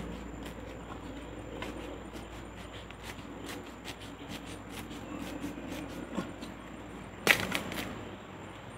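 Hands rustling through dry bamboo leaves and stems at the base of a bamboo clump, with small scattered clicks of stems and one sharp crack about seven seconds in.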